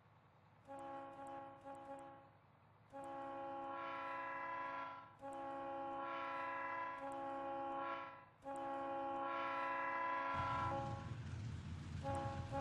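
Train horn sounding a series of blasts, four of them before a fifth near the end, each a chord of several notes. About ten seconds in, a loud low rumble of the approaching train comes in under the horn.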